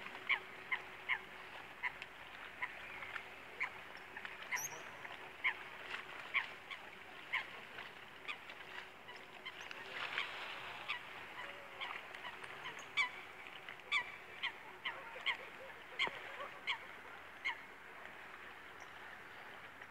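Waterbirds calling: many short, sharp calls in irregular succession, at times about two a second, with a faint steady hum underneath.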